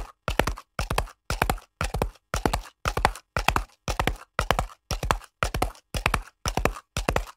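Horse hoofbeats clip-clopping in a fast, very even rhythm: about two clusters a second, each of three or four hoof strikes, with silence between the clusters.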